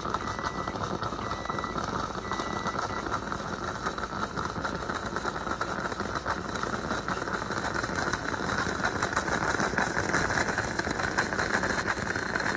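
Stainless-steel moka pot on an electric coil burner gurgling and sputtering as coffee is forced up the spout into the upper chamber: a dense, crackly bubbling that gets louder over the last few seconds. It is the sputtering stage of a moka brew, when steam starts pushing through with the coffee.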